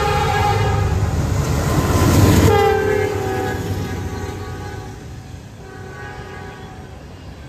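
Freight train locomotive passing close by while sounding its multi-chime air horn over the rumble of the engine and wheels. The rush of the train peaks about two seconds in. The horn's pitch drops as the locomotive goes by, and the horn and rumble then fade as it moves away.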